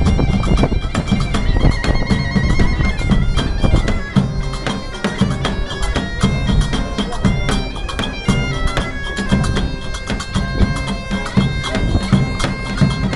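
Medieval folk band playing: bagpipes carry a melody over their steady drone, with large bass drums beating a steady rhythm beneath.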